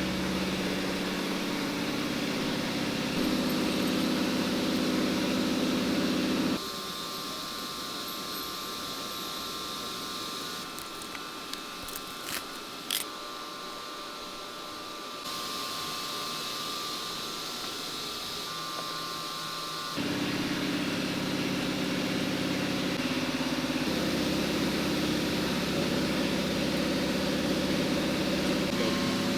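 Steady mechanical hum with several held tones, changing abruptly in level and tone three times, with a few light clicks near the middle.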